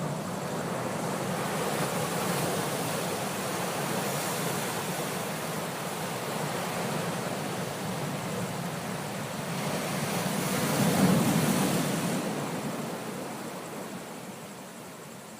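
Ocean waves washing in: a continuous rush of surf that swells to its loudest about two-thirds of the way through, then ebbs away.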